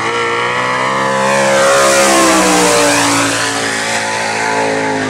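Sprint car's V8 engine at full throttle on a hot lap, swelling as the car comes past about two seconds in, then falling in pitch as it pulls away.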